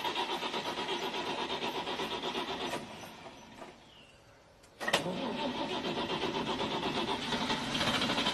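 Car's starter motor cranking the engine, which does not catch. It stops just under three seconds in, and after a pause of about two seconds a click and cranking again. The engine is thought to be flooded.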